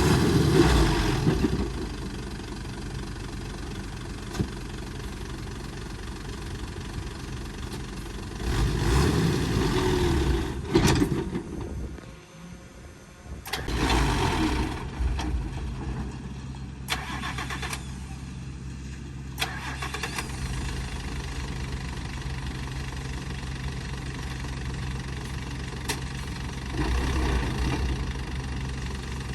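Heavy diesel engine of earthmoving machinery running at a steady idle and rising in louder surges of a second or two several times. There are a few sharp metallic knocks, and a brief drop in sound about twelve seconds in.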